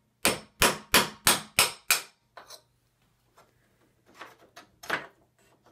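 Claw hammer striking at a door hinge: six sharp taps in quick succession, about three a second, then a few lighter, scattered knocks.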